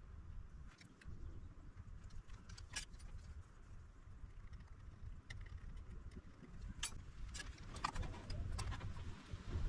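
Scattered small clicks and light taps, as of tools and parts being handled at a repair bench, more frequent near the end, over a low steady background rumble.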